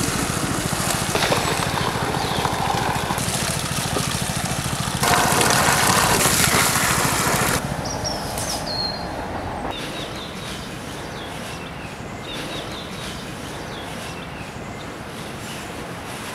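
A small petrol-engine water pump runs with a steady hum while water from its hose sprays and splashes into plastic tubs; the spray is loudest for a couple of seconds near the middle. About halfway through this drops away to a quieter outdoor background with birds chirping now and then.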